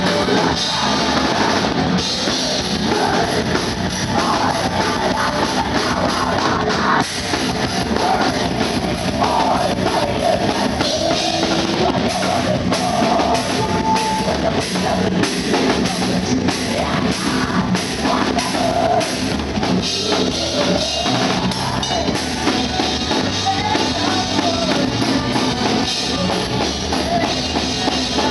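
Metal band playing live: a loud drum kit and distorted electric guitars, with a female vocalist singing into the microphone over them.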